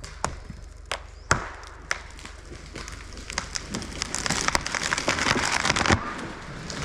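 Branches and brush cracking and snapping: a few sharp single cracks, then a denser crackling that builds through the middle, over a low steady engine hum.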